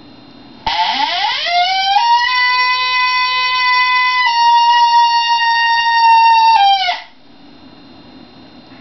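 Cow horn howler, a coyote predator call, blown in one long howl. The pitch sweeps quickly up from low at the start, holds steady for several seconds, then drops slightly and cuts off.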